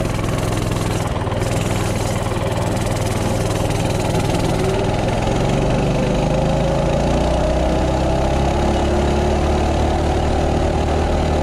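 Coleman CT200U minibike's 196cc single-cylinder four-stroke engine, with its stock exhaust, running under throttle as the bike pulls away and gathers speed. Its note climbs gradually through the second half.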